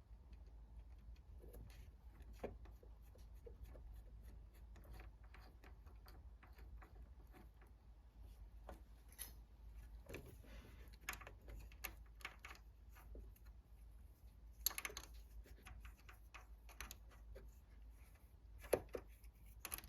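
Faint, scattered clicks and light knocks of metal parts being handled as the lathe's change gears and fittings are refitted, with two slightly louder knocks near the end.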